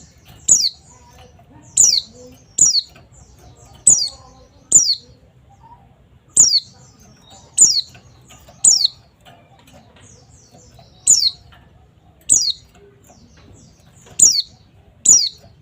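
White-eye (pleci) calling: about a dozen short, sharp, high notes, each dropping steeply in pitch, repeated at irregular intervals of half a second to two seconds.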